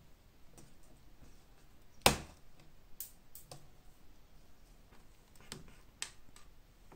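Small screwdriver prying decorative metal tacks out of an antique leather bellows: a few sharp clicks and taps, the loudest about two seconds in, with more near three and six seconds.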